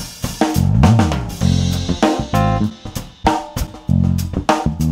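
Intro music: a drum kit beat with snare and cymbals over low bass notes.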